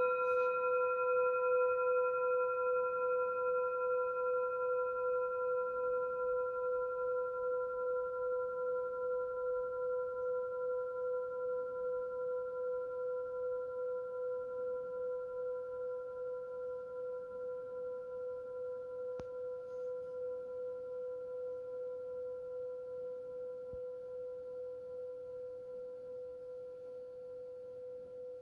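Metal singing bowl ringing on after a single mallet strike: one clear tone with several higher overtones, wavering slowly and fading gradually.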